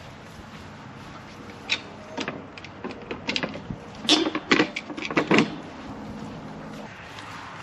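A series of sharp knocks and clanks, a scattered few at first and then a close cluster of loud ones in the last part of the sequence, over a steady background.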